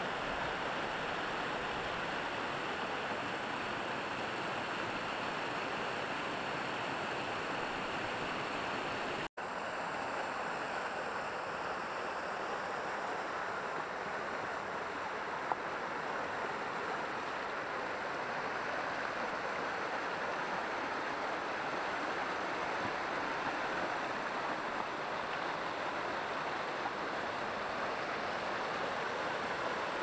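Creek water cascading over rock ledges and a small tiered waterfall, a steady rushing hiss. The sound drops out for an instant about nine seconds in.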